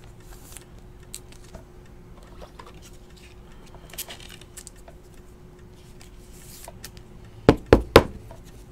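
Trading cards handled by hand: faint rustles and small ticks, then three sharp clicks in quick succession near the end as the cards are set down and picked up. A faint steady hum sits underneath.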